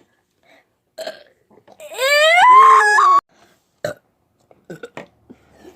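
A person's loud, drawn-out burp lasting about a second and a half. Its pitch rises as it goes, and it cuts off suddenly.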